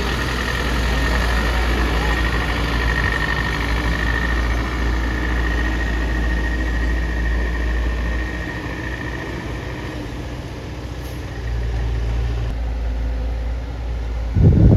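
Heavy machine's diesel engine running steadily at low speed, with a thin high whine over it for the first half. A loud thump comes near the end.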